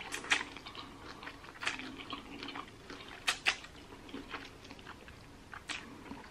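Close-up eating sounds: a mouthful of instant noodles drawn in off chopsticks and chewed, with irregular wet mouth clicks and smacks.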